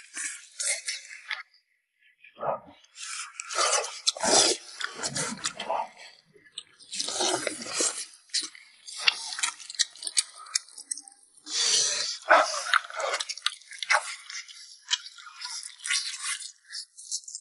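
Close-miked eating of chicken and rice: loud chewing and slurping in bursts a few seconds apart, with sharp clicks in between.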